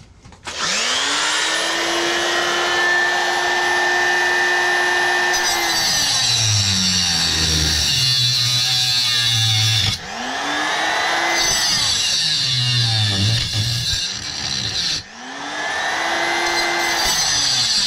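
Small handheld electric cutter spinning up three times to a high, steady whine. Its pitch drops and wavers as it bites into a microwave magnetron clamped in a vise, first around six to nine seconds in and again around twelve to fourteen seconds in.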